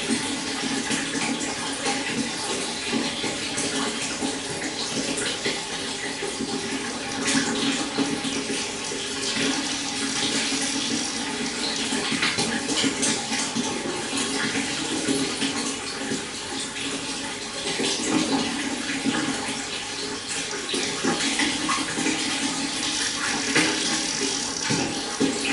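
Stream water flowing and babbling over rocks: a steady, dense splashing rush.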